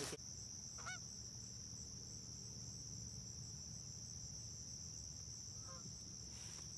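Geese honking twice, faint and distant, about a second in and again near the end, over a steady high-pitched drone of insects.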